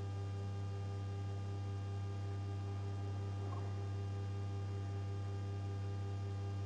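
Steady low electrical hum with a stack of fainter steady overtones above it and a faint pulsing tone among them.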